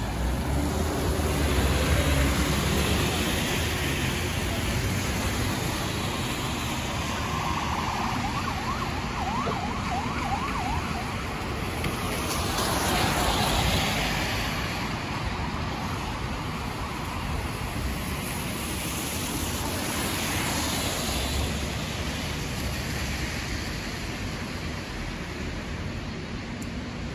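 City street traffic on rain-wet roads: a steady rumble with cars swishing past on the wet pavement about two, thirteen and twenty seconds in. A brief faint wavering whine comes through around eight to ten seconds in.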